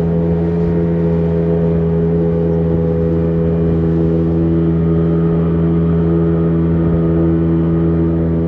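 Engine running steadily at a constant speed, holding one pitch throughout.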